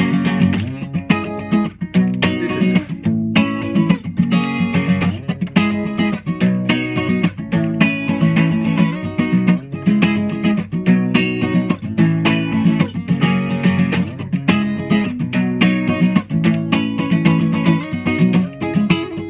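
Acoustic guitar played solo with driving rhythmic strumming, chords struck in quick, sharp strokes in a steady beat.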